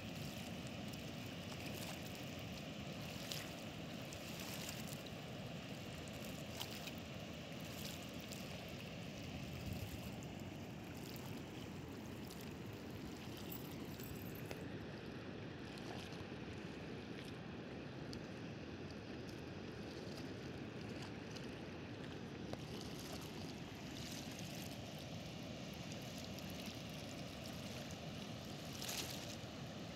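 Steady rushing of water pouring from an open dam spillway gate across the reservoir, with a few light knocks.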